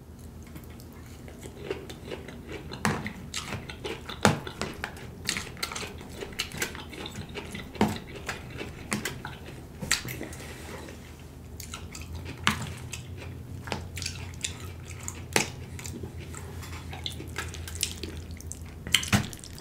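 Close-miked eating of a forkful of dressed salad: wet chewing and mouth clicks, with sharp ticks from a metal fork against a plastic takeout container, over a steady low hum.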